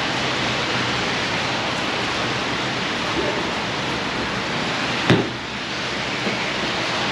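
A golf club strikes a ball off a hitting mat once, a single sharp crack about five seconds in, over a steady hiss.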